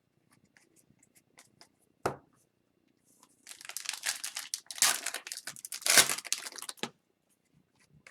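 Foil wrapper of a hockey card pack being torn open and crinkled, a dense crackle lasting about three seconds from midway, after a single light knock about two seconds in.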